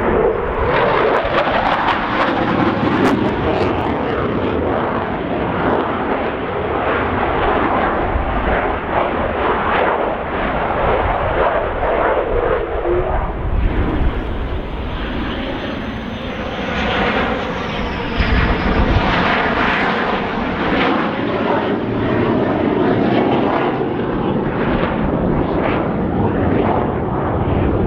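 Belgian Air Force F-16 Fighting Falcon jet fighter flying a display, its jet engine roaring loudly and continuously. Partway through, the roar sweeps in pitch as the jet passes.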